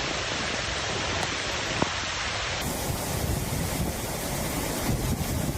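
Hurricane storm noise: a steady rush of wind and water, whose character changes abruptly about two and a half seconds in.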